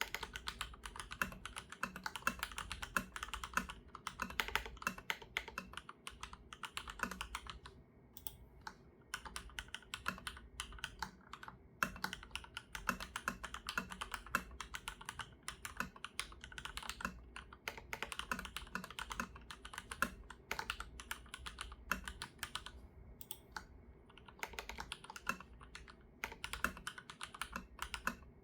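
Leopold FC980M PD mechanical keyboard with Cherry MX2A Black linear switches on a hot-swap PCB, typed on at a steady fast pace: a dense run of key strokes, with brief lulls about eight seconds in and again near twenty-three seconds.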